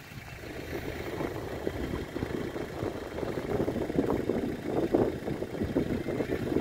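Vehicle engine running, a rough, uneven rumble that grows louder about three seconds in.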